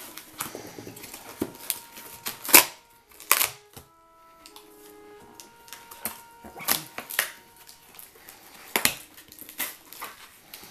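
Packing tape being peeled and cardboard flaps torn open on a shipping box: irregular sharp snaps and crackles over rustling, quieter for a couple of seconds about a third of the way in.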